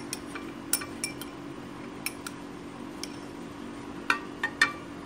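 A metal teaspoon clinking against a small drinking glass: light, irregular clinks, about a dozen, with a quick run of three louder ones about four seconds in.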